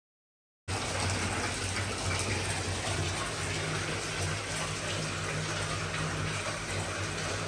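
Water running steadily into a partly filled bathtub as it fills for a bath, with a low hum under the rush; it starts suddenly about a second in.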